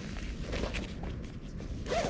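Rustling and small knocks of hands rummaging through a backpack, over a low rumble of wind on the microphone.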